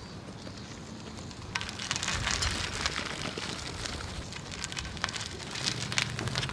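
Bicycle and towed cycle-trailer tyres crunching and crackling over gravelly pavement, growing louder about one and a half seconds in.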